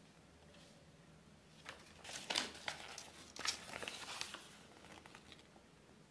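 Folded paper leaflet rustling and crinkling as it is unfolded by hand: a run of crisp crackles from a couple of seconds in, easing off into a few light ticks near the end.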